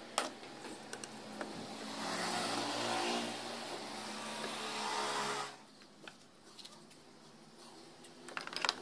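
A motor vehicle engine running nearby, a steady mechanical sound that cuts off abruptly about five and a half seconds in. A few light clicks follow near the end.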